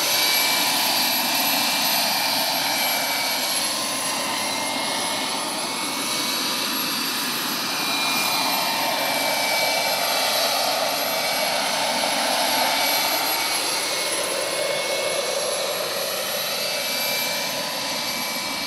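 Vario XLC Carrier turbine-powered model helicopter in flight: the steady high whine of its gas turbine with the whir of the rotors, slowly shifting in tone as it moves about.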